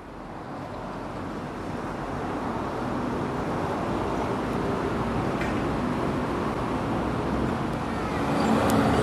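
Steady outdoor rumble of road traffic, growing gradually louder.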